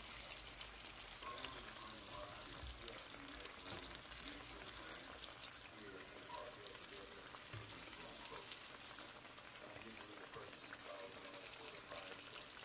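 Breaded swai fish fillets deep-frying in a skillet of hot oil: a steady bubbling sizzle with fine crackles.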